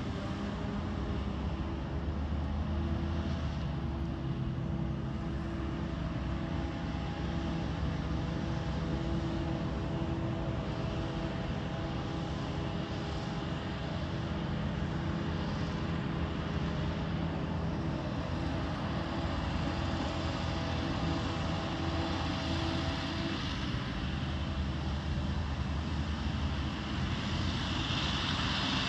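Self-propelled forage harvester running at work in a maize field, with a tractor and trailer alongside: a steady engine drone carrying a held whining tone that drops away about three-quarters of the way through.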